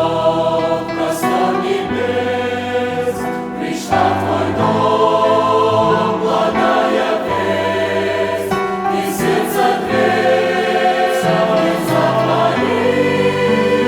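Church choir singing a hymn in held chords that change every second or two over low bass notes.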